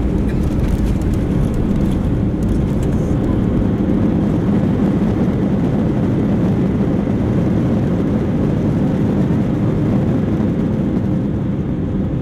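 Steady roar of an Airbus A320's jet engines and airflow, heard inside the cabin over the wing, with a low steady hum underneath.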